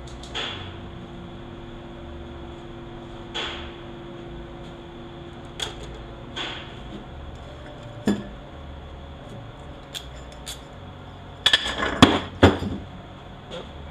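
Parts of a Toyota U250E automatic transmission being handled and set down on a metal workbench: scattered metallic clinks and knocks, with a louder cluster of clanks near the end, over a steady background hum.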